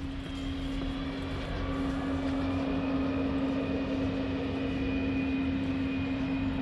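A steady engine drone with a constant low hum and a faint high whine, growing slightly louder over the first couple of seconds.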